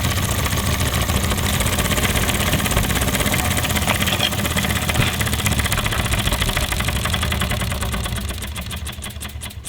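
Restored Wormar Trojan toy steam engine running fast on steam with a rapid, even beat. Over the last two seconds the beat slows and dies away as the engine runs down.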